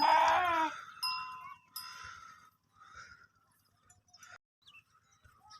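A single bleating call from a farm animal at the start, rising then falling in pitch, followed about a second in by a sharp bell-like clink that rings on. Faint scattered small sounds follow.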